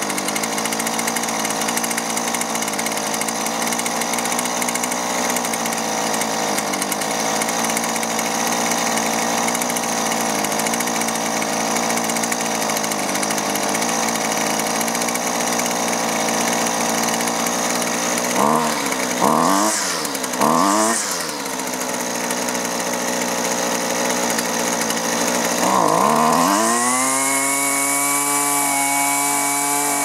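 Husqvarna 128LD string trimmer's small two-stroke engine running while its carburetor mixture screws are adjusted. It idles steadily, is revved in three quick blips about two-thirds of the way through, then rises to a steady high speed near the end.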